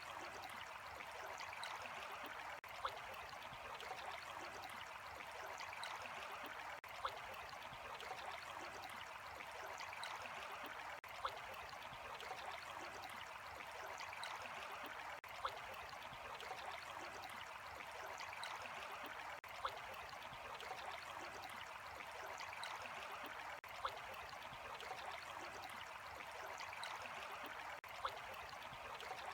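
Steady running water, a continuous trickling flow, with a short sharp click about every four seconds.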